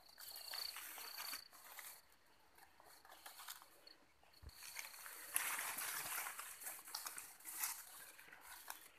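Footsteps and leaves and stems brushing and rustling as someone pushes through dense forest undergrowth, in uneven bursts with small snaps. A thin, high, steady whine comes and goes behind it.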